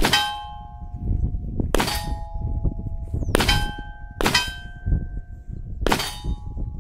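Five Glock pistol shots at steel plate targets, each hit followed by a clear metallic ring from the struck plate. The shots come at uneven spacing, about a second and a half apart, with two closer together near the middle.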